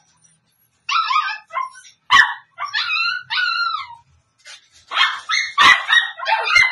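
Puppies whining and yelping in high, falling cries, with a few sharp yips. They start about a second in, pause briefly, then come thicker from about five seconds.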